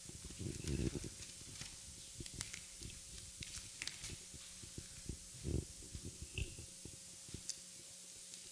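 Bible pages being turned, with scattered paper rustles and crackles picked up by a handheld microphone, and a few low handling thumps about a second in and again about five seconds in.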